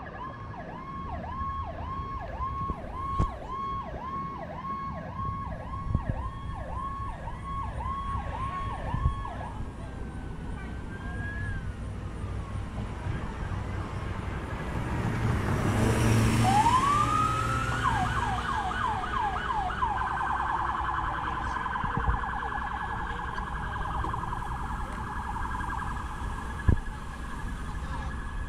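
Emergency vehicle sirens on approaching fire and rescue trucks: a fast yelp sweeping up and down about one and a half times a second for the first nine seconds. A vehicle passes close about halfway through, then a second siren winds up, yelps rapidly and settles into a steadier tone.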